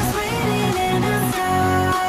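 Background music: an electronic track with a gliding lead melody over a pulsing bass.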